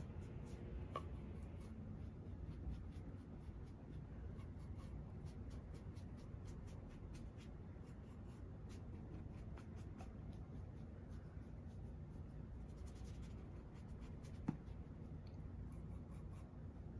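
Faint, light scratchy strokes of makeup being applied to a mannequin's face, over a steady low hum, with one sharp click about fourteen seconds in.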